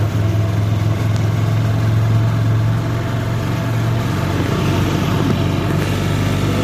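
Motorcycle engine of a tricycle running at a steady cruise, heard from inside the sidecar as a constant low hum with road and wind noise.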